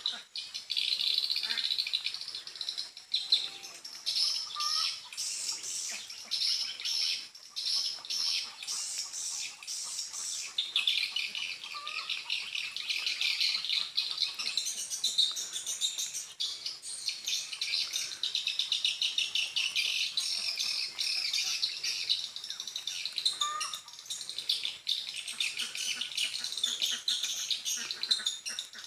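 Swiftlet calls: a dense, continuous high twittering of many chirps, the lure call that draws swiftlets to a swiftlet house, with a few short rising notes now and then.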